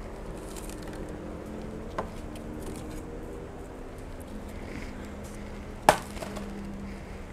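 A small plastic plant pot set down into a plastic basin with one sharp clack about six seconds in, after a lighter tap about two seconds in, over a steady low hum.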